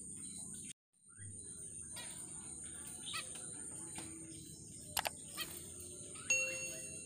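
Steady high-pitched chirring of crickets with a few faint bird chirps, cut by a brief silence about a second in. About five seconds in come two mouse-click sound effects, then a bell chime, the loudest sound, as a subscribe-button animation is clicked.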